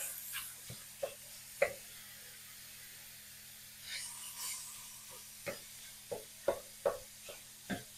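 A plastic meat-chopper utensil knocking and scraping against a cast-iron skillet while breaking up raw ground meat: irregular soft knocks, most of them in the second half, over a faint sizzle.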